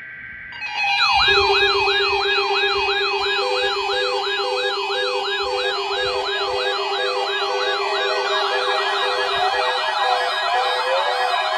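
Electronic siren yelping in quick rising-and-falling sweeps, about three a second, over a steady low tone. It starts under a second in, and a second, faster siren layer joins about two-thirds of the way through.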